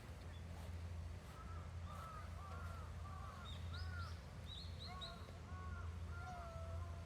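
A rapid run of short, arching animal calls, several a second, starting about a second in, over a steady low hum.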